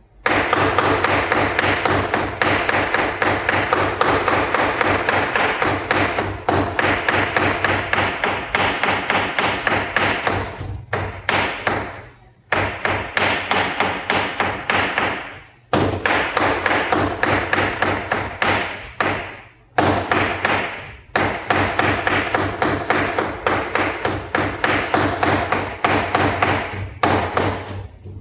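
Heavy knife chopping chicken into keema (mince): rapid, even strokes several times a second, with a few brief pauses.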